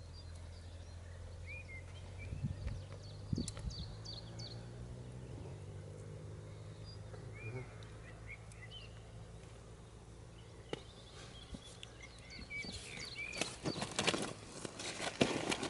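Small birds chirping intermittently over a low steady hum that fades away about halfway through. Near the end, a quick run of rustles and knocks as a carp is handled and lifted in a fabric unhooking cradle.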